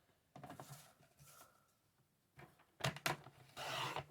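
Sheet of card being handled on a craft desk: a few light taps and clicks, then a brief papery rustle near the end.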